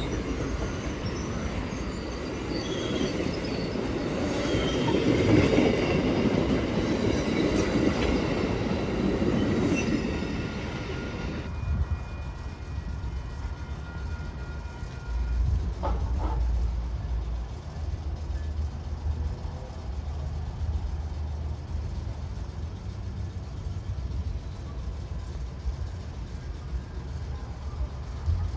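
Train rolling through a station: a loud rumble of cars and wheels on the rails, with faint high wheel squeals, loudest about five seconds in. About eleven seconds in it changes abruptly to a quieter, deeper steady rumble of a train.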